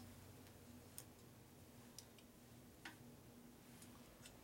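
Near silence with a few faint, sharp clicks about a second apart: a socket ratchet on a long extension as cylinder head bolts are run down by hand until they just touch.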